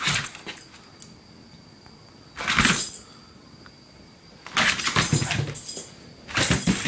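A Boston terrier scrambling and circling on a hot tub cover, heard as four short, noisy bursts of scuffling and thumping, the longest about halfway through. A faint steady chirring of crickets fills the gaps.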